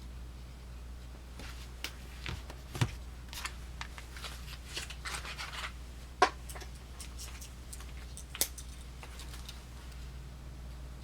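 Swiss Army knives being handled: a run of small clicks and light rustling, with three sharper snaps, one about three seconds in, one about six seconds in and one near the end.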